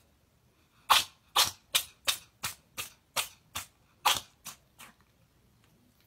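Tabby cat sneezing about eleven times in rapid succession, roughly three sneezes a second, the first ones loudest and the later ones weaker.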